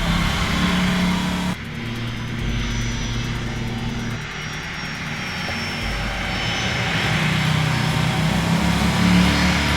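Jet airliner engines running at takeoff power, with car engine noise mixed in. The sound changes abruptly about a second and a half in, and a faint high turbine whine follows.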